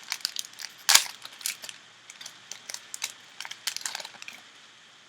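Foil trading-card pack wrapper crinkling and cards rustling as they are handled, in a run of short crackles with a sharp one about a second in, dying down near the end.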